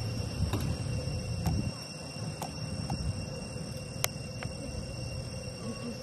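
Steady high-pitched insect chorus of several unbroken tones. A low rumble stops about two seconds in, and a few sharp clicks are scattered through.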